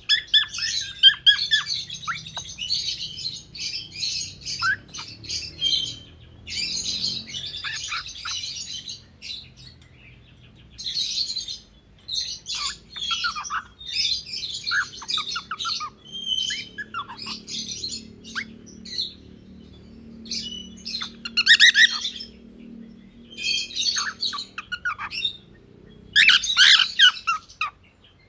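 Gray cockatiel chirping, with some squawks, in bursts of rapid high calls separated by short pauses.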